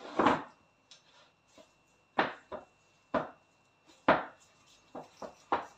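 Knife chopping through a log of date-filled semolina dough to cut makrout pieces: about eight short, sharp chops at uneven intervals, the first the loudest.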